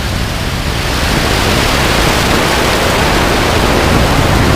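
Starship's three Raptor rocket engines climbing after liftoff: a loud, even rushing noise that swells about a second in.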